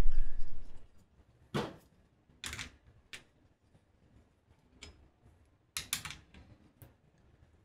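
Scattered clicks and light knocks of a small hand tool and metal parts as the grip screw of an airsoft AK is driven in, about seven in all, with a dull low bump at the start that is the loudest sound.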